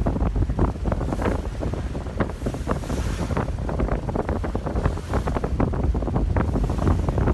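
Wind buffeting the microphone on a moving ferry: a loud, gusty rumble over the rush of choppy harbour water.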